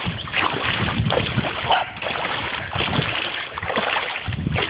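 Water sloshing and splashing in uneven surges as someone wades through a shallow creek.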